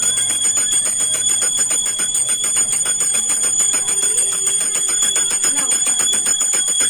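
A puja hand bell rung rapidly and without pause: a steady, high ringing with fast, even strokes.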